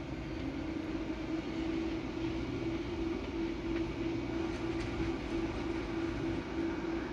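MPP Solar off-grid inverter running with a steady hum.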